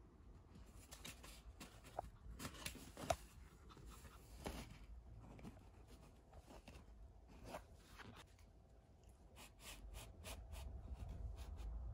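Faint scratching, rustling and scattered light clicks of a Pomeranian mouthing and scraping an empty cardboard kitchen-roll tube, with a couple of sharper clicks in the first few seconds.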